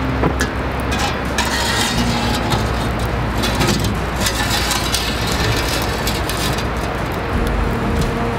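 Wood fire burning in a wood-fired pizza oven: a steady rush of flame with scattered crackles and pops.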